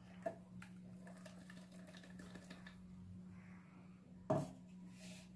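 Quiet kitchen handling: thick ground paste sliding from a steel mixer jar into a steel pot, over a steady low hum. One short knock about four seconds in.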